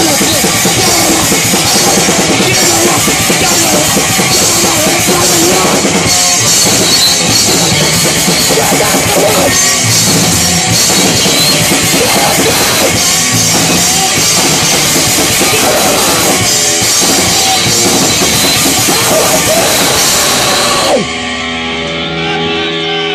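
Punk band playing live and loud: electric guitar, bass guitar and drum kit going hard together. About 21 seconds in, the song stops and a held note rings on.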